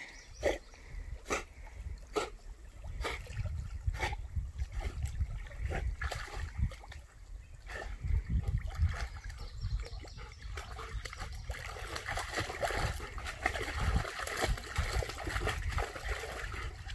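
A chocolate Labrador paddling and then wading through a shallow, rocky creek: short splashes at first, then a denser run of splashing and trickling water as it moves among the rocks, over a steady low rumble.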